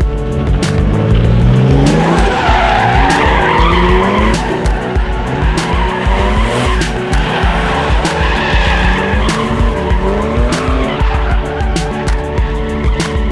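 BMW drift car's engine revving hard with its pitch climbing again and again, while the tyres squeal through a drift for most of the stretch. Background music with a steady beat runs underneath.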